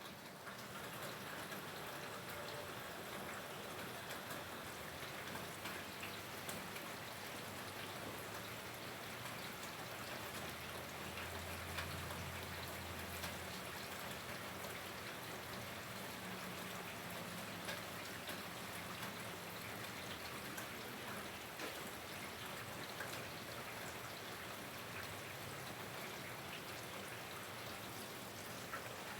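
Steady rain falling, an even hiss dotted with many small ticks of drops hitting nearby surfaces.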